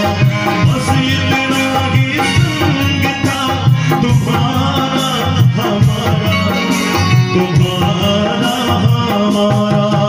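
Live Indian devotional music: a harmonium holds steady reed tones over the quick, continuous hand strokes of a dholak drum.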